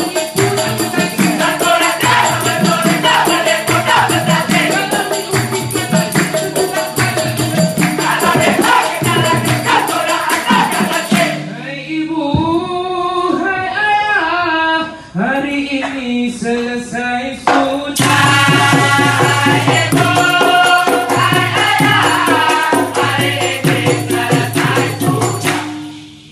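Dikir barat group singing: a seated male chorus chanting with clapping, shakers and percussion. About eleven seconds in, the percussion drops away and a single male voice sings a gliding, ornamented line. The full ensemble comes back in at about eighteen seconds and stops near the end.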